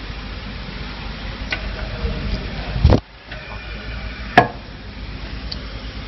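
Hands handling clear plastic filter housings in a plastic-wrapped welding fixture: rustling and crinkling over a steady hiss, with a few clicks. The loudest is a sharp click about four and a half seconds in.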